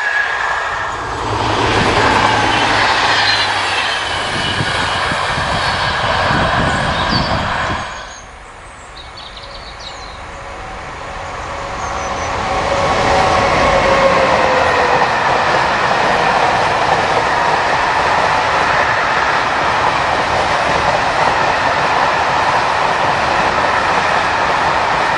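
A passing train rolls away, and the sound drops off suddenly about eight seconds in. Then a long freight train of open wagons approaches and rolls past on the rails, with steady high-pitched squealing from its wheels over the rolling noise.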